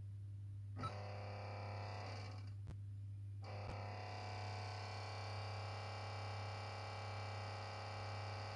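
Philips VG-8235's internal 360 KB floppy disk drive spinning up on boot: a click about a second in, then a steady whir that stops briefly and starts again with another click. The drive runs without reading the disk, a failure that is nearly always a broken drive belt.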